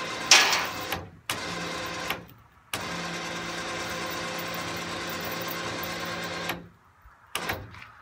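A 3500 lb electric winch hoisting a heavy beech log, its motor running in spurts: a steady whine that cuts out about a second in, runs briefly again, then runs for about four seconds before stopping, with a short burst near the end. A sharp clatter comes just after the start.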